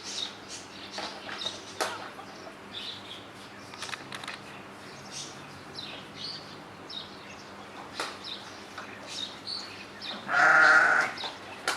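A goat bleating once, loudly, for about a second near the end, over faint short high chirps.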